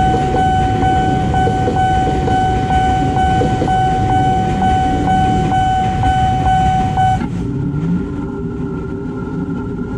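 Level-crossing warning bell ringing steadily, pulsing about three times a second, over the rumble of a KRL electric commuter train passing. The bell cuts off about seven seconds in as the train clears, leaving the waiting motorcycles' engines running and revving.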